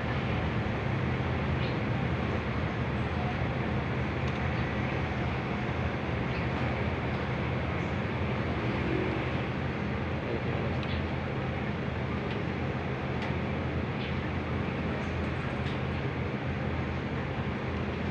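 Split-type air conditioner's outdoor unit running with a steady low hum and a few faint ticks.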